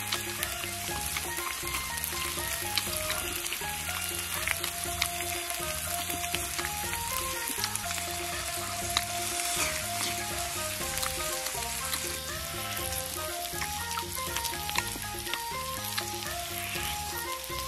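Food sizzling steadily on a hot teppanyaki iron griddle, a dense continuous crackle, with background music carrying a simple stepping melody and bass over it.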